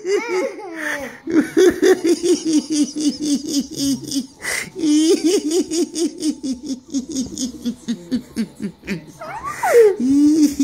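Long runs of laughter, several quick ha-ha pulses a second, breaking off briefly about four seconds in and ending with a high squeal that falls in pitch before the laughing starts again.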